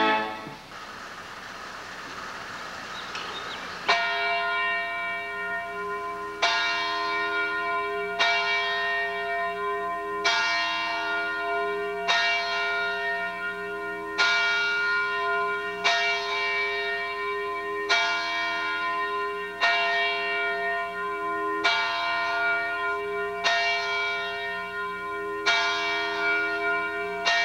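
A few seconds of steady hiss, then a single church bell tolling: about a dozen strokes of the same pitch, one roughly every two seconds, each ringing on and fading into the next.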